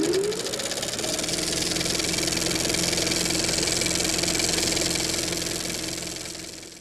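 Intro sound effect under the opening title: a dense, steady hum with a held tone, rising in pitch over the first second, then fading out near the end.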